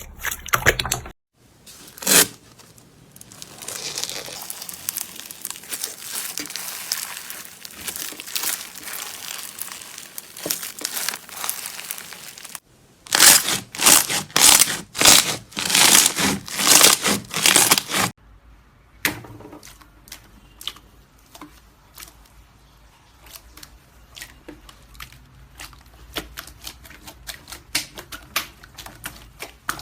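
Slime being pressed, stretched and poked by hand in several short clips: crackling, crunching and popping. The loudest, densest crackling runs from about 13 to 18 seconds in, and lighter scattered clicks and pops follow.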